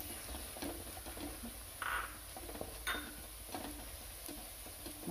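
Stirring shallots and coconut pieces frying in a pan: scattered light clicks and scrapes of the utensil on the pan, with a short louder scrape about two seconds in and another about three seconds in.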